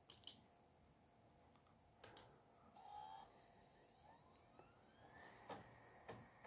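Near silence: room tone with a few faint clicks as a laptop is operated. There is a faint short beep near the middle and a faint rising whine after it that then holds steady.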